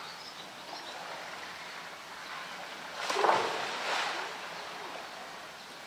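Polar bear plunging into pool water: a splash about three seconds in, with the water churning for about a second and a half after it.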